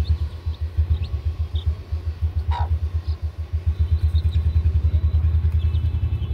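An engine running nearby with a fast, regular low thumping, the loudest sound, with faint short high peeps from chicks scattered over it.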